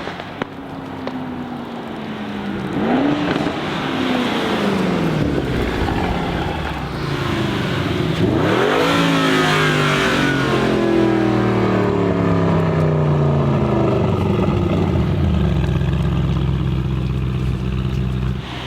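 Tuned Audi RS Q8's twin-turbo V8 revving and accelerating hard. The engine pitch swings up and down, with a sharp drop and surge a little over eight seconds in. It then eases into a steady drone.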